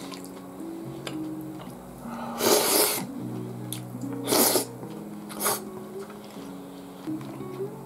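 Three short, noisy slurps as spoonfuls of beef stew and rice are sucked off a metal spoon, the first the loudest, over background music with a steady melody.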